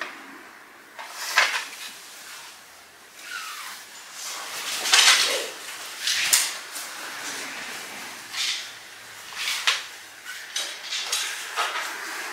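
Handling sounds of iaido practice with Japanese swords: a series of short, separate swishes and rustles as blades are swung and keikogi and hakama move, with light metallic clinks from the sword fittings. The loudest come about five and six seconds in.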